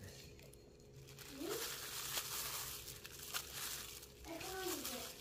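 Disposable plastic glove crinkling and dry breadcrumbs crunching as a chicken breast is pressed and turned in a bowl of crumbs.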